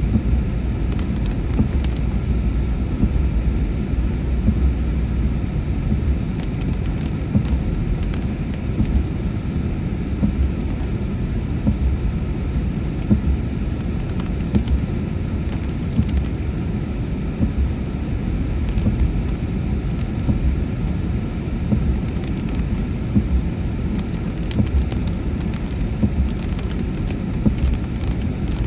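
Car driving on a rain-soaked road, heard from inside the cabin: a steady low rumble of tyres and engine with the hiss of wet pavement. Light scattered taps of raindrops hit the windshield.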